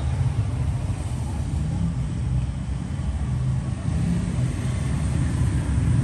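Steady low rumble of road traffic in the background, with no distinct clicks or other events.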